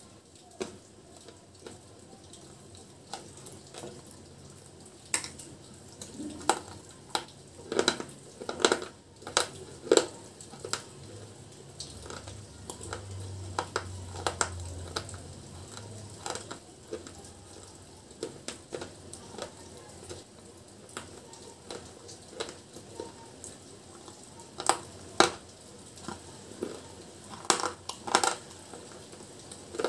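Close-miked crunching and chewing of dry white chips and crumbly powder, with irregular sharp crunches that come thickest about a quarter of the way in and again near the end.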